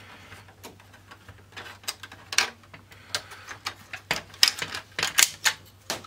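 Plastic clicks, knocks and rattles of a CD changer's plastic laser drive assembly being worked loose from its retaining clips by hand. The clicks come irregularly, sparse at first and then quicker and louder in the second half.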